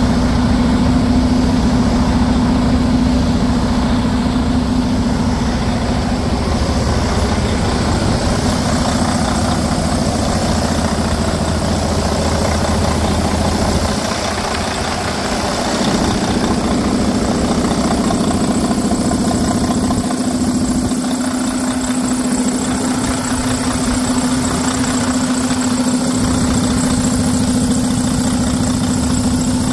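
2010 Detroit Diesel DD15 12.8-litre inline-six diesel engine idling steadily, heard close up in the engine bay.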